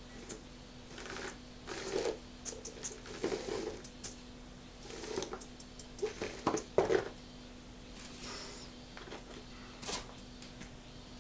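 Yokomo nanoQLO micro rock crawler's tyres and chassis scrabbling, scraping and knocking on a moulded recycled-paper terrain plate as it climbs, in irregular scuffs and taps over several seconds.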